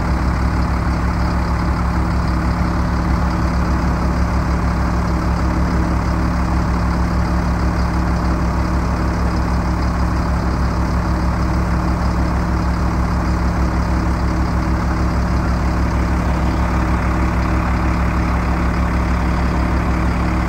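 The diesel engine of a 2000 Sterling vacuum truck running steadily, a constant low engine note that holds the same pitch and level throughout.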